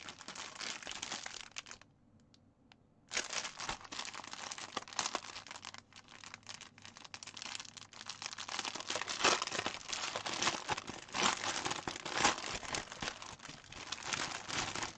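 Plastic packaging of a cross stitch kit crinkling as it is handled and opened to get at the floss, with a pause of about a second near the start.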